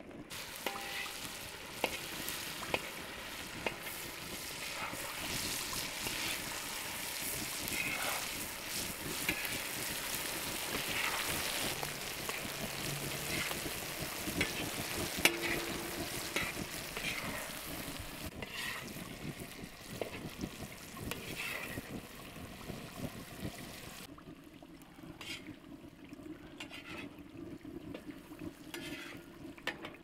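Meat and vegetables frying in oil in a wide black wok, a steady sizzle with scattered clicks of pieces dropping in and being stirred. The sizzle drops off a little after three-quarters of the way through.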